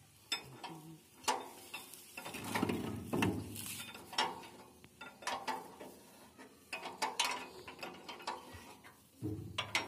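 Irregular metallic clicks and knocks of a wrench working the bolts under a concrete mixer, with a denser rattling stretch about three seconds in.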